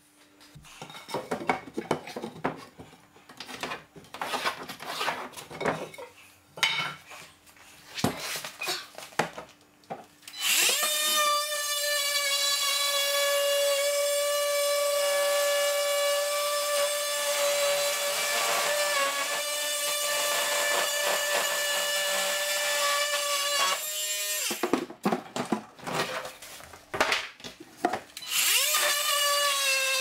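Cordless Makita oscillating multi-tool cutting through a cupboard's thin back panel: a steady high-pitched buzz for about thirteen seconds, stopping, then starting up again near the end. Before it come scattered knocks and scrapes of loose wooden cupboard parts being handled.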